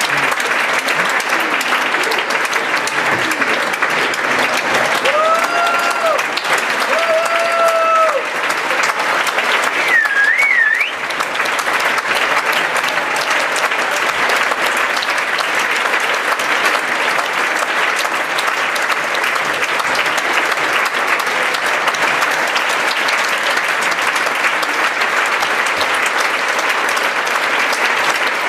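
Theatre audience applauding steadily. Two long held voice calls rise over the clapping about five to eight seconds in, and a short wavering whistle-like tone comes around ten seconds.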